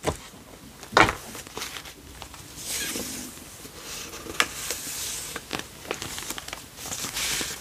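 Pages of a handmade paper journal being handled and turned: a sharp tap about a second in, then soft swishes of paper sliding and rustling, with small ticks between them.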